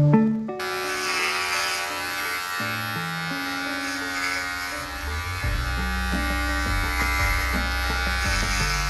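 Electric hair clippers buzzing steadily, switched on about half a second in. Music plays underneath: slow low notes, with a deep low drone coming in about halfway.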